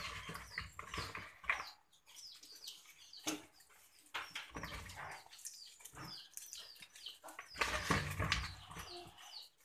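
Wet whole tilapia rubbed and handled in a plastic basin of water, with irregular splashing and squelching. Birds chirp over and over in the background.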